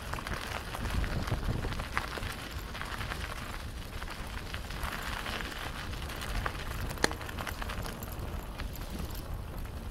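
Bicycle tyres rolling over a gritty, muddy trail, a continuous crackle of small ticks, with wind rumbling on the microphone; a single sharp click about seven seconds in.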